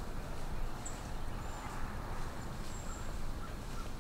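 Woodland ambience: a few short, very high bird chirps now and then over a steady low rumble.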